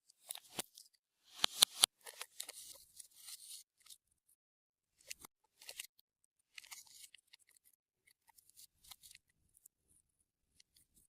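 Clear slime being worked by hand with sticky clicks, pops and crackles. A run of loud sharp clicks comes in the first two seconds, then a stretch of crackling, then scattered softer clicks.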